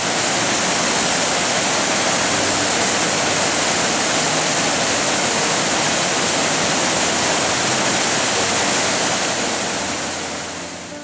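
Small waterfall pouring steadily over rocks in a mountain gorge, a continuous rush of water that fades a little near the end.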